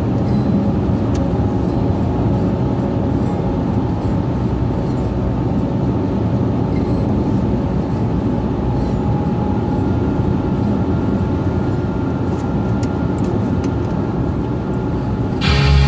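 Steady road and engine noise inside the cabin of a 2006 Honda CR-V driving at highway speed. Loud music cuts in abruptly just before the end.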